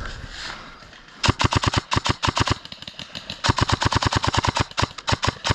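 Airsoft gun firing on full auto: two rapid bursts of about ten shots a second, the second longer than the first.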